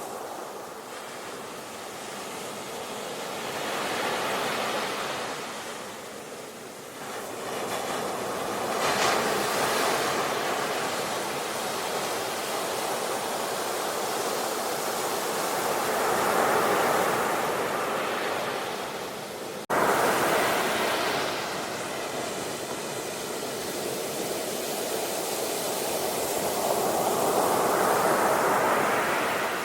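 Ocean waves crashing on the shore, the surf swelling and falling every several seconds. About twenty seconds in, the sound cuts out for an instant and comes back loud at once, like an edit in the recording.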